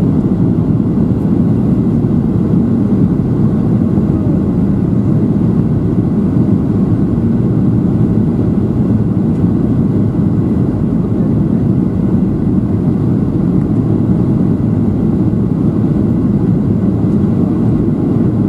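Steady, low-pitched cabin noise inside a Boeing 737-700 descending toward landing: the hum of its CFM56-7B turbofan engines mixed with airflow over the fuselage, unchanging throughout.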